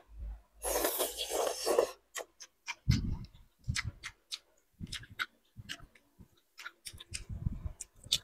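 A person slurping noodles, a hissing suck about a second in, then chewing with wet mouth clicks, lip smacks and soft irregular thumps.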